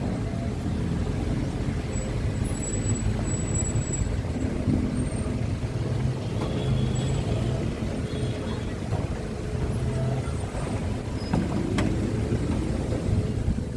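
Steady rumble of vehicle engines and street traffic, with a single sharp knock near the end as computer equipment is pushed into a pickup truck's bed.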